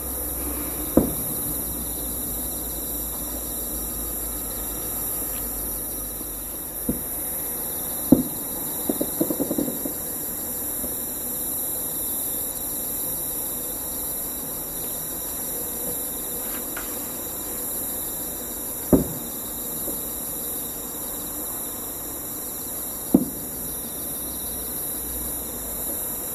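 Distant fireworks shells bursting as short dull booms, about six spread out, with a quick run of smaller reports about a third of the way in, over a steady trill of insects and hiss.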